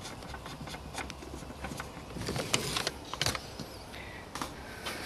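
Scattered light clicks and knocks of a hand working a loosened plastic retaining nut and trim inside a car's rear compartment, with a brief cluster of sharper clicks about halfway through.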